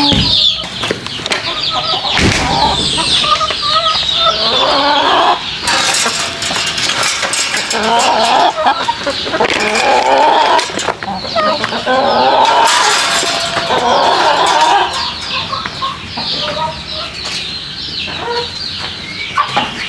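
A flock of backyard chickens clucking loudly, many calls overlapping continuously.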